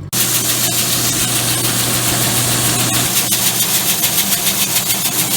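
An engine running steadily under a loud, even rushing noise; the sound cuts in abruptly.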